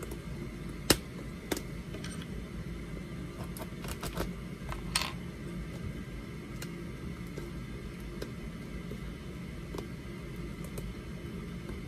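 Hands working at a sealed cardboard packaging box, trying to open it without a knife: scattered sharp clicks and light scrapes, the loudest about a second in. A steady low room hum runs underneath.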